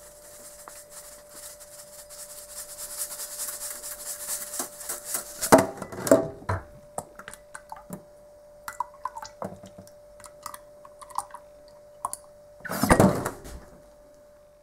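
Liquid poured into a glass standing in a stainless-steel sink, a hiss that fades over the first five seconds. Then loud knocks and scattered clicks of plastic bottles being handled in the metal sink, and a loud clatter about thirteen seconds in.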